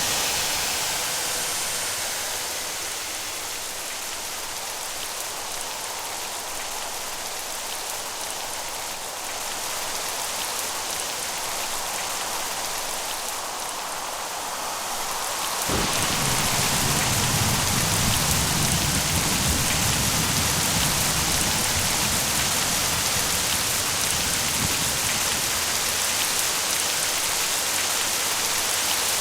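Rain falling steadily as an even hiss. About halfway through it suddenly becomes louder and fuller, with a deeper low rumble underneath, and stays that way.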